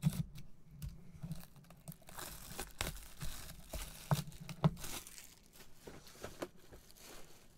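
Plastic shrink wrap being slit with a box cutter and torn off a trading card box, crinkling and crackling, with several sharp clicks as the wrap and cardboard box are handled.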